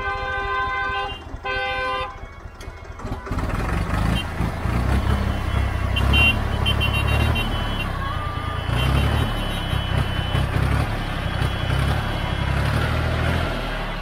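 A vehicle horn sounds twice, a long blast then a short one. About three seconds in, the engine of a Massey Ferguson 35 tractor close by comes up loud and runs with a heavy, uneven low rumble.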